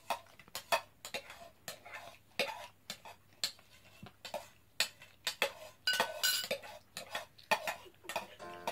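Metal spoons clinking and scraping against small ceramic bowls in irregular taps, about one or two a second, some ringing briefly.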